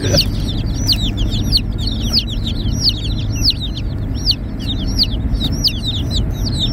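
A box of baby chicks peeping, many rapid high peeps that slide downward in pitch, several a second, over the low rumble of a car's cabin.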